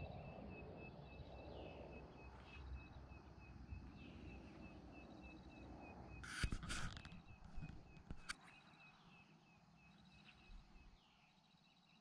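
Quiet mountain-morning outdoor ambience: a faint high chirp repeated steadily about four times a second, over a low rumble that fades after about eight seconds. A short loud hiss comes about six and a half seconds in, and a sharp click just after eight seconds.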